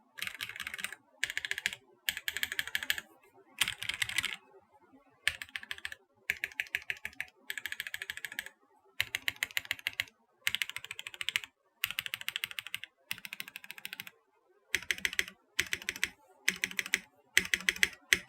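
Typing on a GAS67 mechanical keyboard fitted with KTT Strawberry linear switches, lubed with Krytox 205G0 and 105 and filmed, and XMI keycaps: quick runs of keystrokes, each half a second to a second long, with short pauses between. From about three-quarters of the way through, the keystrokes carry a deeper thud.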